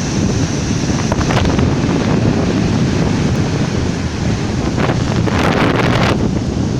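Black Sea surf washing onto the shore under strong wind, with wind buffeting the microphone in a heavy low rumble. About five seconds in the rush of water turns brighter and fuller for just over a second.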